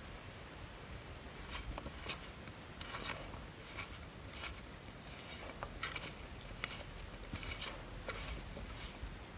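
Kitchen utensil work: a series of short, crisp scrapes and clicks at irregular intervals, about one every half second to a second, starting about a second and a half in.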